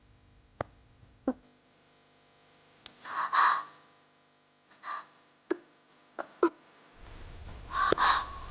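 A crow cawing several times in short harsh calls, with a few sharp clicks between the calls.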